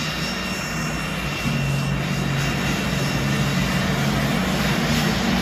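Business jet's rear-mounted turbofan engines running as it taxis: a steady rushing noise with a thin, steady high whine.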